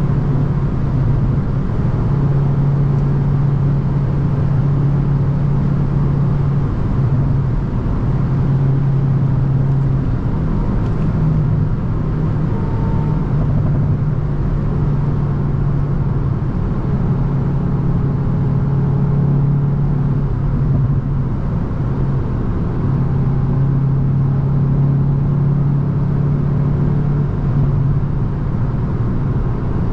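Hyundai i20 N's 1.6-litre turbocharged four-cylinder engine droning steadily at motorway cruising speed, with tyre and road noise; the engine pitch stays nearly constant, with no gear changes or hard revving.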